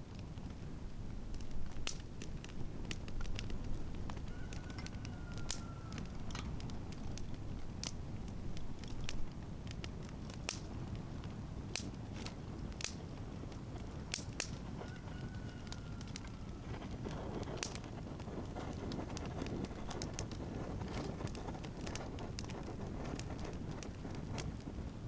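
Wood fire crackling with sharp, irregular pops over a steady low rumble. Twice a bird gives a long whistled call that falls slightly in pitch.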